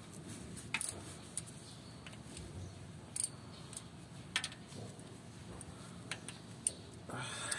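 Faint, sparse metallic clicks from a ratchet wrench as the bolts of the rear crankshaft oil seal housing are turned in, a few separate clicks a second or so apart.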